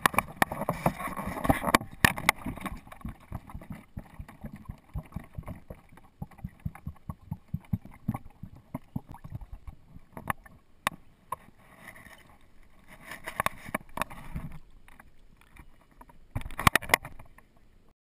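A Sumatran elephant calf guzzling milk from a plastic bottle, heard from a camera mounted on the bottle: a dense run of irregular knocks and clicks with louder bursts, cutting off just before the end.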